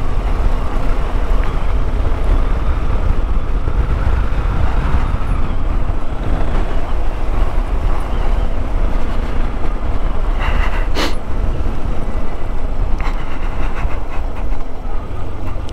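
Yamaha XTZ 250 Lander's single-cylinder engine running steadily while being ridden, with wind and road rumble, heard through a microphone inside the rider's helmet. A brief sharp noise about eleven seconds in.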